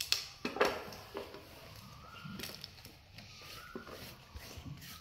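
Baby macaques giving soft, short high calls that come back about every second and a half. A few knocks and rustles near the start are the loudest sounds.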